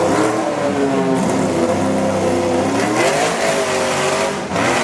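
Racing car engine revving past at full volume, its pitch climbing and falling with the throttle, with a clear rise about three seconds in.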